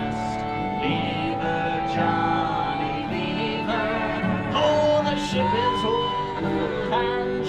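Small acoustic band playing a lively tune on tin whistle, accordion and fiddle.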